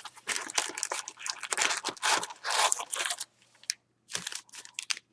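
Crinkling and tearing of packaging as a sealed box of hockey cards is opened by hand, in irregular bursts with a short pause partway through.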